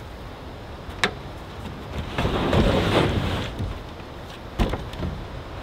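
Homemade slide-out camper extension being pulled out of a pickup truck bed: a click, then a rough sliding scrape lasting about a second and a half, then a knock about four and a half seconds in.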